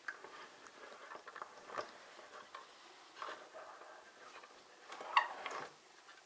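Plastic building-brick toy truck handled on a wooden table: faint clicks and taps of plastic pieces under the fingers, with a louder cluster of clicks about five seconds in.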